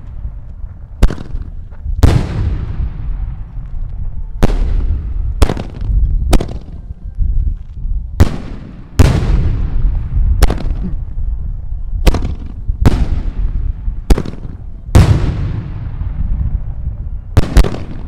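Aerial firework shells bursting in quick succession: about fourteen sharp bangs, one every second or so, each trailing off in a long rumble.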